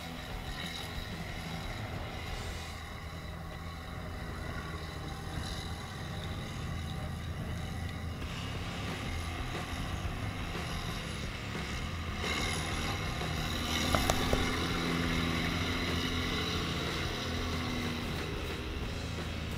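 John Deere tractor's diesel engine running hard under load as the tractor struggles for grip in deep mud, getting louder about two-thirds of the way through. A few sharp clicks come shortly after the engine picks up.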